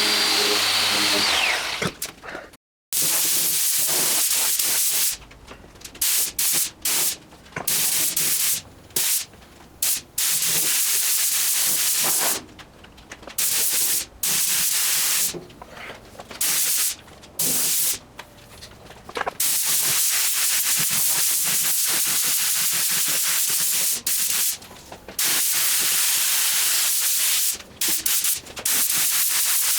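Paint spraying: a loud hiss that starts and stops in irregular passes, some short, some several seconds long. In the first two seconds a motor runs and winds down.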